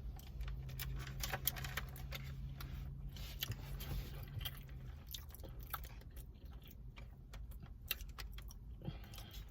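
Faint close-up eating sounds: chewing with scattered small mouth clicks and ticks. A low steady hum runs under the first half and stops about halfway through.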